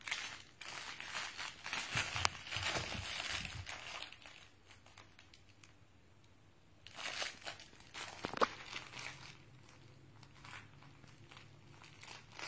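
Fabric crinkle toy crinkling and crackling as a puppy bites and shakes it, in bursts: busy for the first few seconds, a quieter lull, then another flurry about seven seconds in with one sharp snap, and softer rustling after.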